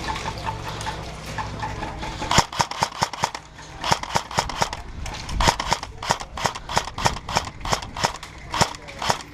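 Airsoft guns firing: many sharp cracking pops in irregular runs, a few a second, growing denser from about two and a half seconds in.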